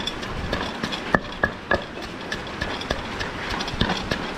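Irregular clicks and knocks of kitchen utensils during food preparation, a few a second, over a steady hiss of heavy rain.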